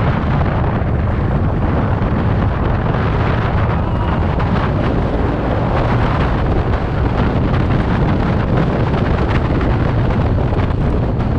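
Steady wind rushing over the microphone of a TVS Ntorq 125 Race XP scooter riding at about 80–90 km/h, with the scooter's single-cylinder engine running underneath.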